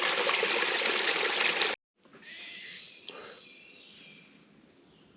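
A small mountain creek running and trickling steadily, cut off abruptly under two seconds in. Quiet woodland ambience follows, with one faint click.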